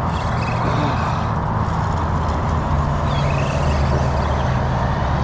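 Steady road traffic noise, with the low drone of vehicle engines underneath.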